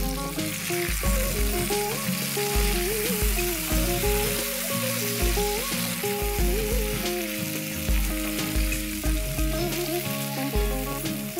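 Raw green tomato pieces, green chillies and herbs sizzling in hot oil in a nonstick frying pan as they are stirred with a wooden spatula. Background music with a melody and regular bass notes plays over it.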